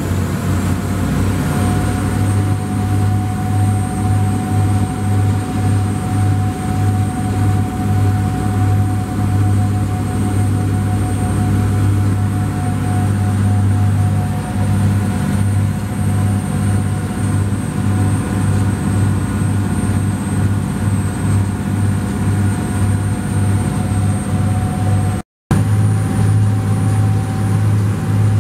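Steady running of the boat's machinery: a deep, pulsing engine hum with a constant whine above it that rises slightly in pitch about a second in. The sound cuts out for a moment near the end.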